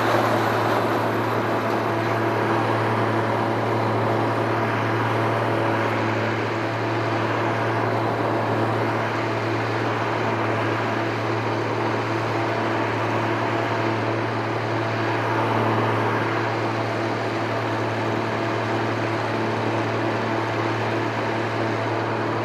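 Claas Mercator 75 combine harvester running steadily: a constant low engine hum under an even mechanical noise.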